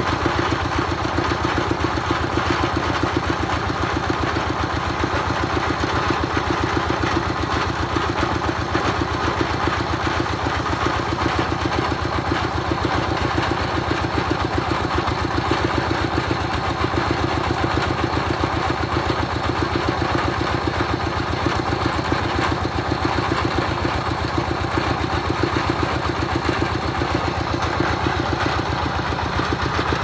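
Engine of a truck-mounted water-well drilling rig running steadily at an even speed, with a fast, regular pulsing beat.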